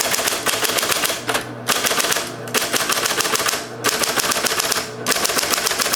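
SCM Coronet Super 12 electric typewriter typing in fast runs of power-driven keystrokes, five bursts of rapid clicking with short pauses between them. The electric motor hums steadily underneath.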